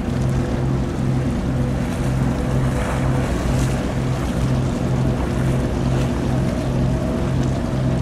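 A ship's engine drones with a low hum that pulses about one and a half times a second, over a steady wash of wind and water noise.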